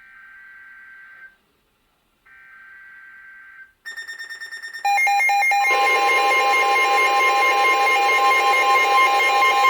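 NOAA Weather Radio SAME header: short bursts of warbling digital data tones, about a second each with a second's gap, marking the start of a new warning. About four seconds in, a rapid beeping starts, and about a second later a loud, steady alert tone over static begins and keeps going.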